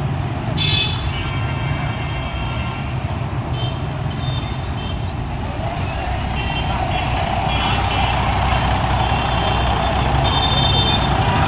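Road traffic: a steady low engine rumble, with short high-pitched tones sounding now and then over it.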